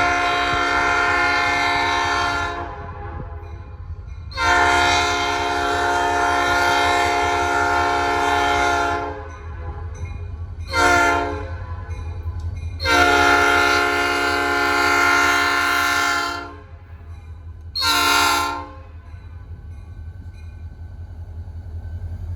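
Air horn of a BNSF diesel locomotive blowing for a grade crossing: two long blasts, a short one, another long one and a final short one, over the steady low rumble of the approaching train.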